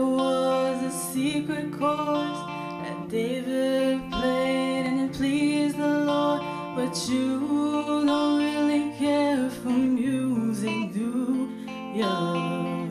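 A woman singing a slow song with long held notes, accompanied by guitar.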